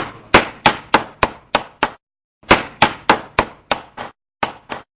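Automatic CNC steel-rule bending machine working a die rule: a fast series of sharp metallic clacks, about three a second, in short runs that start loud and fade stroke by stroke.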